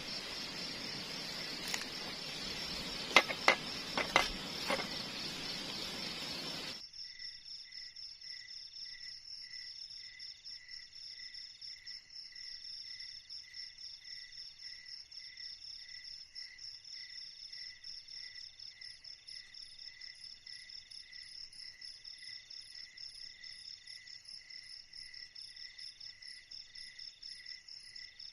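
Insect chorus chirping in steady, even pulses at several high pitches. For the first seven seconds it sits over a broad hiss with a few sharp clicks. The hiss then cuts off suddenly and only the chirping remains.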